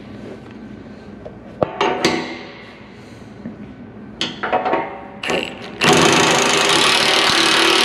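Cordless impact wrench tightening a bolt: a couple of metal clanks, short bursts of the wrench, then continuous hammering from about six seconds in.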